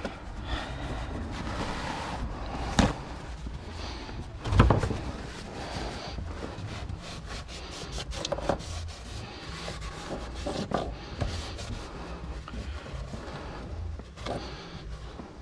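Rubbing and handling noise of a shop rag wiping up spilled gasoline, with scattered small clicks and two knocks about three and four and a half seconds in, the second the loudest.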